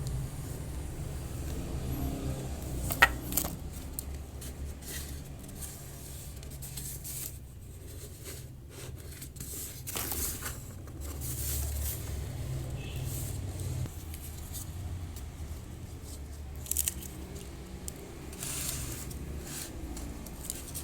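Cardboard being cut and handled: scrapes and tearing noises with scattered clicks, one sharp click about three seconds in, over a steady low hum.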